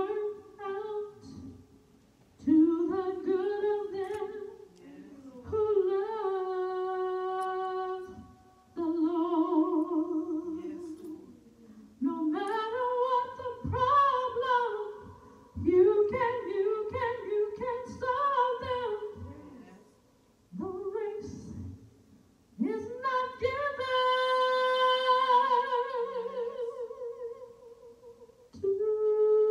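A woman singing unaccompanied in sung phrases with long held notes and vibrato, broken by short pauses.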